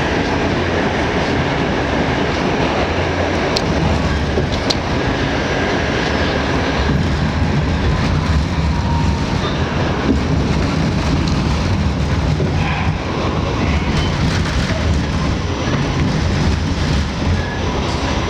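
An R68 subway car running at speed, heard from on board: a steady low rumble of wheels on the rails, with a few sharp clicks from rail joints about four seconds in.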